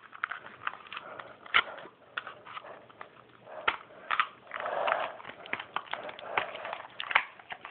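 Cloth rustling and handling noise, with scattered sharp clicks and knocks, as a small toy is worked into a pocket.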